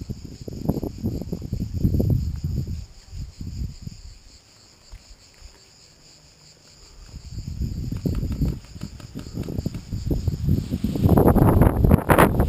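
A steady, high-pitched chorus of buzzing insects, under irregular low rumbling gusts of wind on the microphone. Near the end, loud scratchy rustling as leaves and branches brush against the camera.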